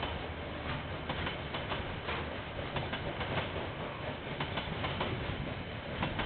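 KiwiRail train passing, its steel wheels clicking and clattering over the rails in frequent irregular knocks over a low steady rumble.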